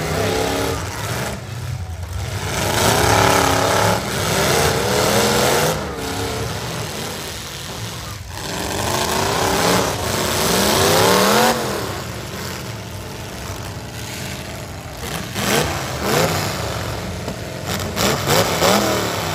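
Full-size V8 demolition derby trucks' engines revving hard as the trucks ram and push one another, the pitch rising and falling in several long sweeps.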